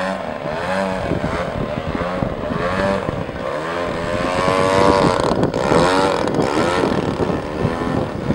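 Radio-controlled aerobatic model airplane's engine and propeller, its pitch rising and falling again and again as the throttle changes and the plane swoops past.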